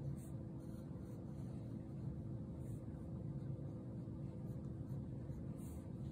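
Medium fountain-pen nib on a Karas Kustom Fountain K, drawn across paper in a few faint writing strokes, over a steady low hum.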